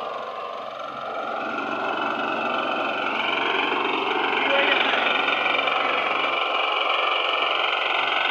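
Small single-cylinder engine of a walk-behind rice reaper running, getting louder over the first few seconds and then holding steady, with people's voices in the background.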